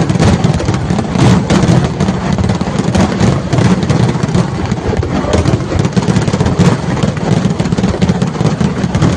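Fireworks barrage: a dense, unbroken run of loud bangs and crackles with no gap.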